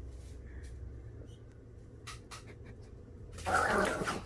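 A few light clicks over low room noise, then about three and a half seconds in a dog gives one short, loud snarl lasting under a second.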